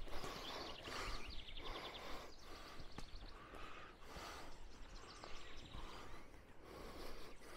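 Footsteps swishing through tall grass and brush, about one step a second, with a faint fast high trill about a second and a half in.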